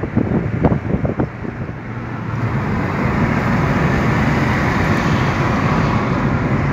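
Wind buffeting the microphone in irregular gusts for the first couple of seconds, then a steady rush of road and tyre noise from a car driving at highway speed.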